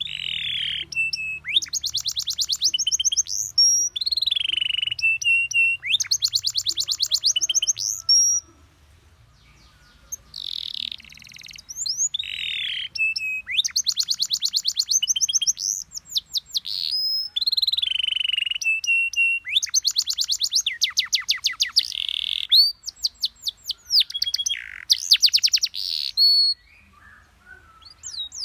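Domestic canary singing a long, varied song. Downward sweeping whistles alternate with rapid trills of fast repeated notes, with a short pause about a third of the way in.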